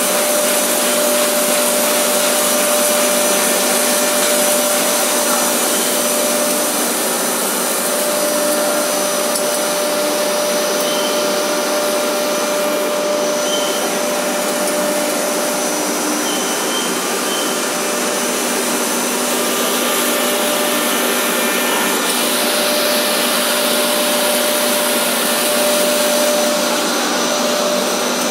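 Two-screw, double-layer (AB) blown film extrusion machine running: a loud, steady whir from its extruder motors and air blower, with a few constant hums under a strong high hiss.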